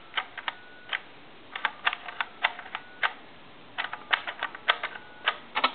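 Push buttons of a Western Electric donut telephone's repaired touch-tone keypad clicking as a string of digits is dialed, in quick clusters of short clicks.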